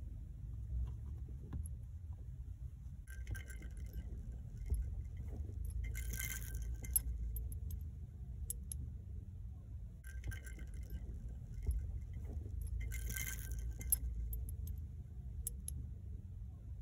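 Light metallic jingling, like small tags or keys, in four short bouts, over the steady low rumble of a car's cabin while driving.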